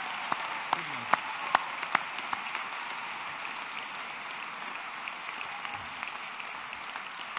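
Large indoor audience applauding: dense, steady clapping with a few sharper individual claps in the first couple of seconds, easing off a little toward the end.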